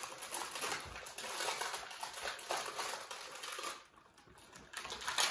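Snack packaging crinkling and rustling as it is handled, for about four seconds, then quieter, with one short sharp crackle near the end.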